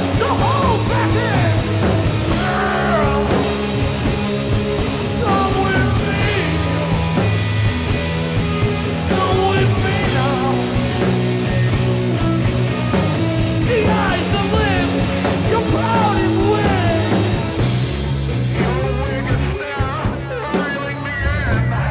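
Live rock band playing: amplified harmonica played into a cupped handheld microphone, wailing and bending over a steady bass guitar line and drums.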